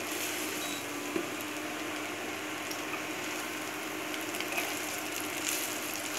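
Prawn fried rice sizzling in a hot non-stick wok as it is stirred and tossed with a spatula, a steady sizzle with the spatula scraping through the rice. A steady low hum runs underneath.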